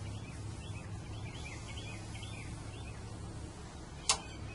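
Small birds chirping in quick short calls over a low steady hum, with one sharp click about four seconds in.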